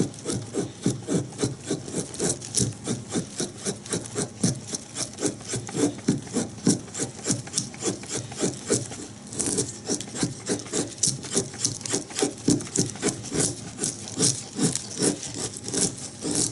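A Bark River Bushcrafter knife, its flat, slightly convex bevel freshly sharpened, shaving thin curls from soft pine in quick, even strokes, about three a second: feathersticking.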